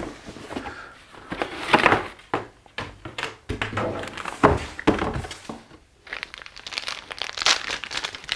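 Cardboard kit box handled: irregular thuds and scraping as it is moved and reached into, then crinkling plastic parts bags near the end.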